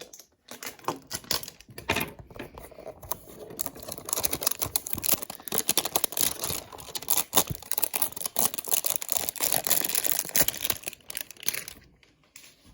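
Plastic wrapping being slit with a knife and torn off card boxes, a dense run of crinkling and crackling that builds a few seconds in and dies away near the end.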